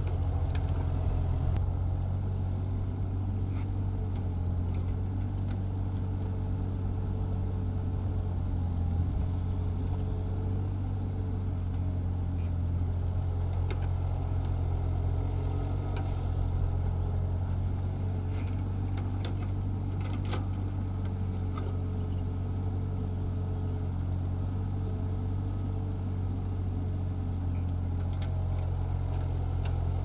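Compact excavator's diesel engine running at a steady speed while digging, with a few light clanks around the middle.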